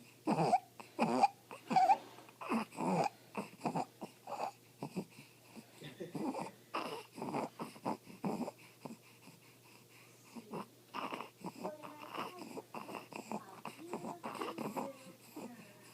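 An infant breathing with stridor: a pitched, noisy sound on each breath, coming in quick, irregular bursts mixed with fussy crying, loudest in the first few seconds. Stridor is the sign of a narrowed upper airway.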